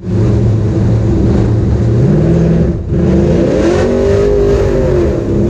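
LS1 V8 engine of a street-legal NASCAR truck, heard from inside the cab while driving. Its pitch steps up about two seconds in and drops out briefly just before the middle, then the revs climb and fall again.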